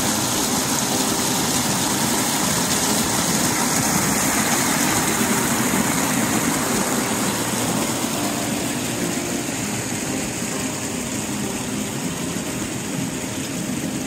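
A small mountain creek rushing and splashing over rocks in a steady rush of water, easing off slightly in the second half.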